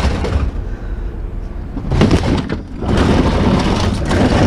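Scrap tin and metal items crashing and clattering as they are dumped onto a scrap pile, with a hit at the start and another about two seconds in, then a run of clatter, over a steady low rumble.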